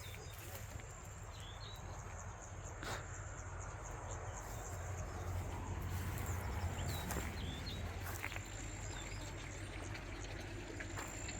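Outdoor countryside ambience: small birds giving short scattered chirps, with a thin steady high insect-like tone that comes and goes, a few sharp clicks, and a steady low rumble underneath.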